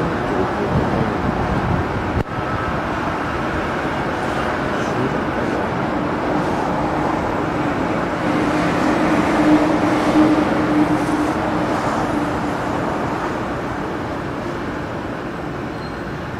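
Steady road traffic noise, with a vehicle's engine hum swelling for a few seconds in the middle. A single sharp click about two seconds in.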